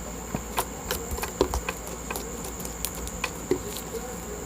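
Slime being squished and stretched by hand, making irregular small pops and clicks, over a steady high-pitched whine.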